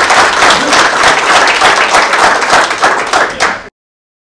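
Crowd applauding, a dense, loud clapping that cuts off abruptly about three and a half seconds in.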